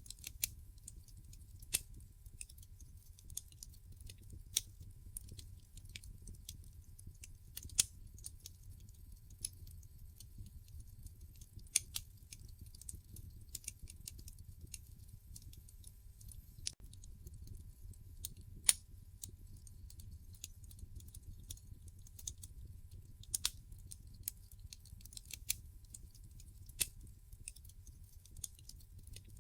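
Wood fire crackling in a fireplace: irregular sharp pops and snaps, a few much louder than the rest, over a steady low rumble of the burning logs.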